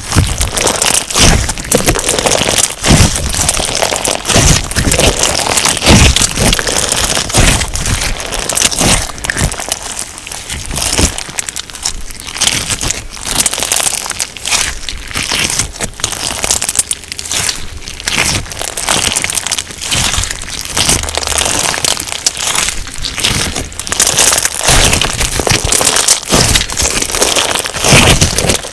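Crunch slime packed with sugar beads being squeezed and pressed by hand, giving a dense, continuous crackling and crunching of many small sharp pops, heavier in the first several seconds and again near the end.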